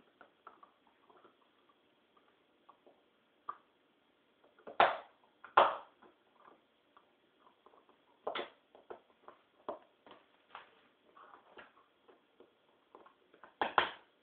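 Two puppies play-wrestling on a hard floor: scattered scuffles and short sharp noises, with a louder pair a little before the middle and another pair near the end.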